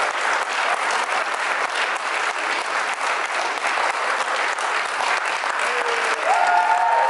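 Audience applauding steadily, a dense patter of many clapping hands. Near the end a long held note comes in over the clapping.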